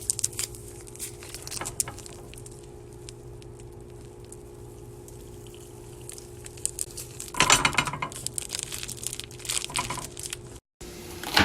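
Kitchen prep handling: scattered clicks, light clatter and rustling over a steady low hum, with a busier burst of clatter about two-thirds of the way through.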